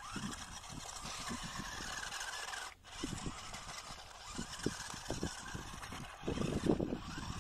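Electric motor and gears of a 1/16-scale 4WD rock crawler RC car whining as it drives over dirt, the pitch wavering with the throttle, against irregular low thumps. The sound cuts out briefly a little under three seconds in.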